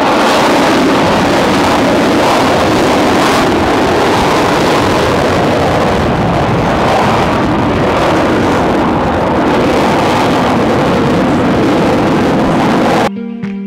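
Loud, steady aircraft engine roar that cuts off abruptly near the end.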